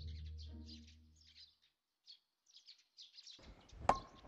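Small birds chirping throughout, over low background music that fades out in the first second and a half. Near the end comes a single sharp knock: a wooden mallet striking a stone mortar.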